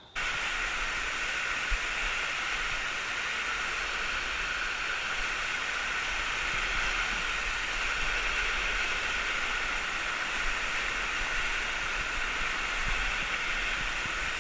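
Rushing water of a cascading waterfall: a steady, even hiss with a low rumble underneath.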